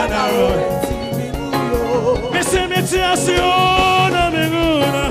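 Live gospel music: voices singing in harmony, holding and bending long notes, over a band with a steady drum beat.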